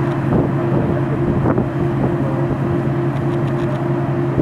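Diesel engine of large harvest machinery, a combine harvester or tractor, running steadily with a constant drone and a mechanical rumble.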